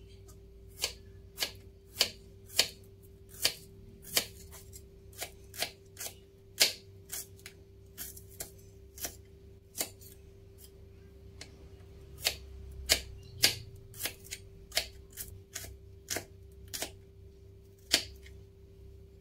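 Kitchen knife slicing shallots on a wooden cutting board: sharp, irregular knocks of the blade meeting the board, about one or two a second. A faint steady hum runs underneath.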